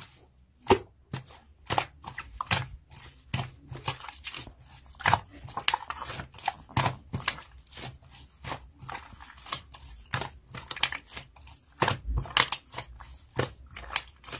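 Slime being stretched and squeezed by hand, giving off irregular sticky clicks and pops a few times a second.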